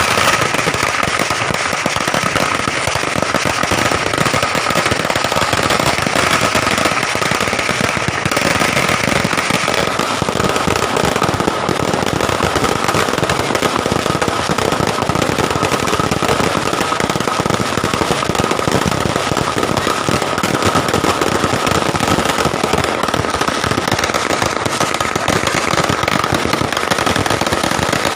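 Fireworks going off in a dense, unbroken crackle of rapid bangs, at an even, loud level.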